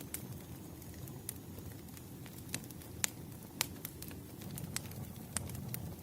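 Wood fire crackling in a fireplace: irregular sharp pops and snaps, about a dozen, the loudest two around the middle, over a steady low rumble of burning.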